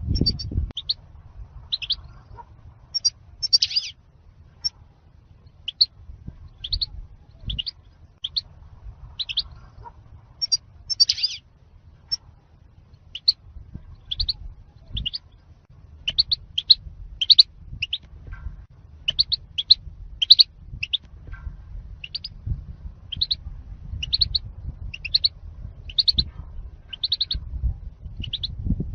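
European goldfinch calling: a steady run of short, high chirps, about one or two a second, over a low rumble.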